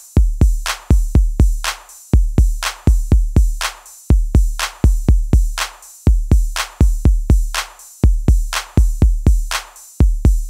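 Electronic background music carried by a drum-machine beat: deep kick drums and sharp, ringing hits in a steady repeating pattern.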